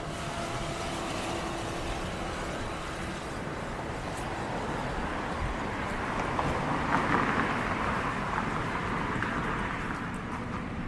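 Road traffic: a steady hum of engines, with one vehicle passing close, growing louder to a peak about two-thirds of the way through, then fading.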